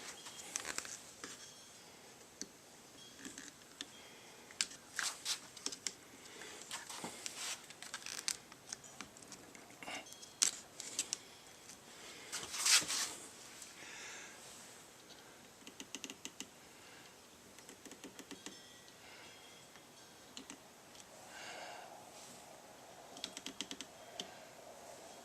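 Clamps and wooden workpiece being handled at the bench: scattered faint clicks, taps and light clinks, with one louder knock about halfway through.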